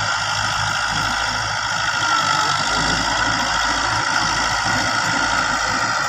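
Farm tractor's diesel engine running steadily under load as it drives a rotary tiller through the soil.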